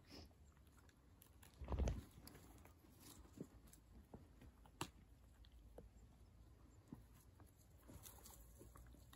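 Faint rustling and scattered soft clicks of dogs moving about in snow among twigs, with one soft low thump about two seconds in.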